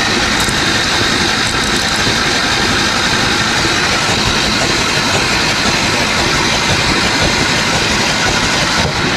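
Ford Ranger 4.0 V6 turning over on its starter motor without starting, with the fuel pump relay unplugged, to pump old oil through the engine. The engine runs steadily, with a brief dip near the end.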